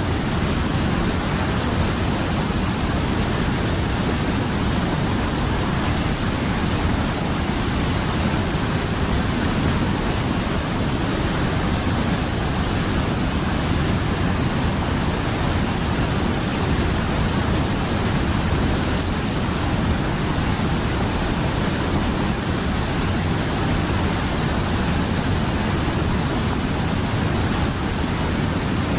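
A mountain river flowing, a steady rush of running water that holds even throughout.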